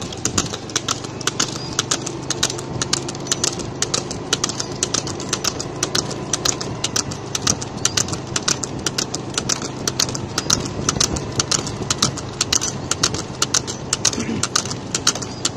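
A vehicle's engine running steadily, under a constant fast clatter of sharp clicks, several a second.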